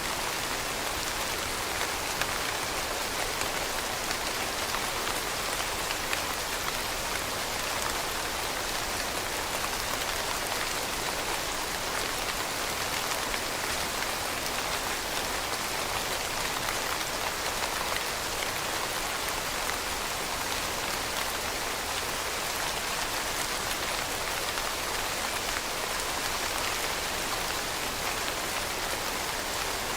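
Steady rain falling and pattering on a surface, an even hiss of many fine drops with no thunder.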